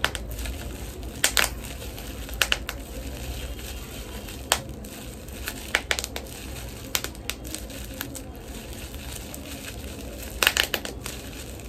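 Bubble wrap squeezed and twisted between the fingers, crinkling, with scattered sharp pops as bubbles burst, several in quick succession near the end.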